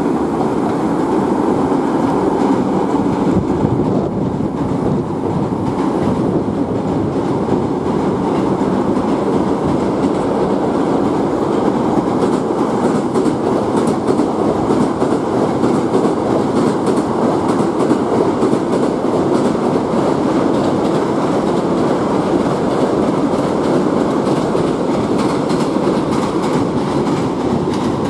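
Hankyu electric commuter trains running over a steel girder rail bridge: a steady loud rumble of wheels on rails, with clickety-clack from the rail joints.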